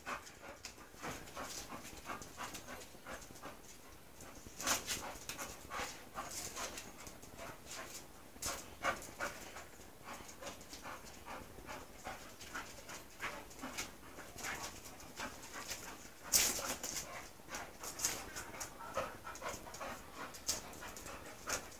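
Two bull terriers play-wrestling: dogs panting, with irregular short scuffling sounds, the loudest about a third of the way in and again about three quarters of the way through.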